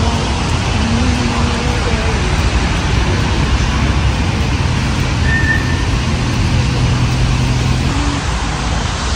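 Steady hiss of rain falling on wet paving and umbrellas, with a low wash of road traffic underneath.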